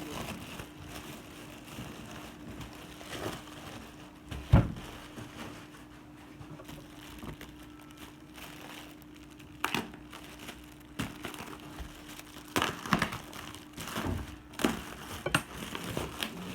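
Hands handling packaging: plastic crinkling with scattered taps and knocks, the sharpest about four and a half seconds in, over a faint steady hum.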